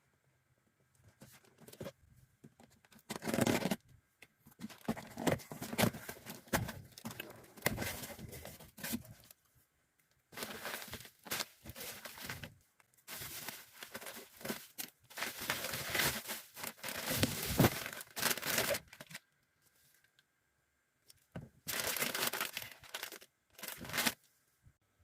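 Packaging being handled: repeated tearing and crinkling of wrapping material in irregular bursts, with short pauses between them.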